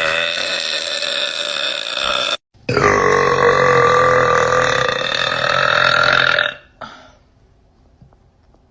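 A woman burping: two long, loud burps, the first ending about two seconds in and the second, about four seconds long, cutting off sharply.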